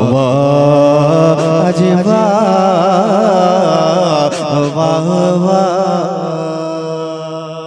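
A man sings a naat unaccompanied into a microphone, holding one long, ornamented note that wavers in pitch. The note grows quieter and fades away near the end.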